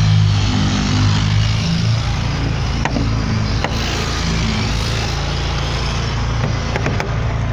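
A machine motor running steadily, a low hum under a broad hiss. The hum changes over the first couple of seconds, and a few faint clicks come near three and seven seconds in.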